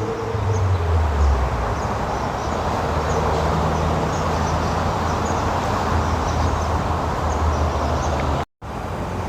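Steady outdoor rumble of vehicle traffic with a low engine hum, briefly cut off near the end.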